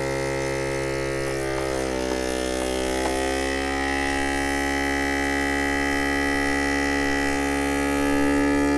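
Countertop food vacuum sealer's pump running steadily on the moist setting, drawing the air out of a sealer bag. It is a steady hum whose pitch sags briefly about two seconds in, then holds.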